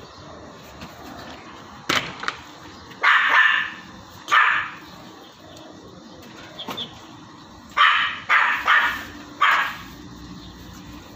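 A dog barking in two bunches of short barks, about three to four and a half seconds in and again around eight to ten seconds in, with a couple of sharp knocks about two seconds in.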